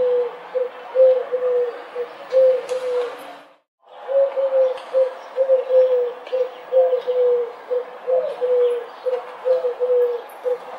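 Feral pigeons (rock doves) cooing: a run of short, low, slightly falling coos, two or three a second. The coos break off for about half a second about three and a half seconds in, then carry on.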